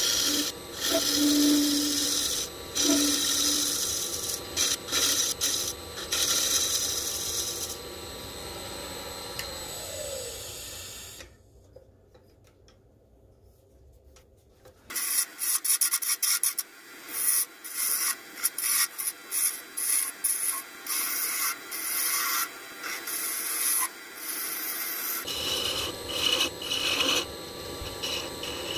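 Woodturning tool scraping and cutting resin-impregnated maple spinning on a wood lathe, in a run of short, uneven strokes. About ten seconds in a tone slides downward, the sound drops almost away for a few seconds, and then the scraping strokes resume.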